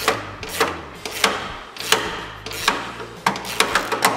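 Ratchet on a 9/16 socket clicking in short strokes, irregularly about every half second to second and quicker near the end, as a steel bolt is tightened into the aluminium retainer in a snowmobile's bottom drive shaft. A steady low hum runs underneath.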